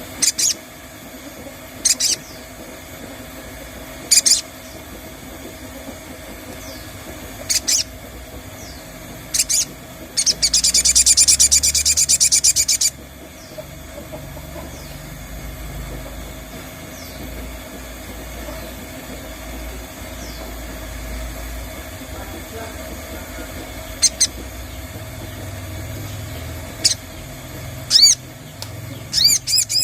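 Sogon bird calls: short, sharp notes every couple of seconds, with a fast trill lasting about two and a half seconds in the middle and a quick run of notes near the end. This is a lure call played to draw a sogon into singing.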